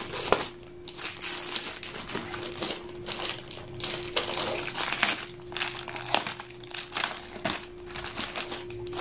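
Clear plastic protective bag crinkling and rustling in irregular bursts as it is handled and pulled off a new laptop.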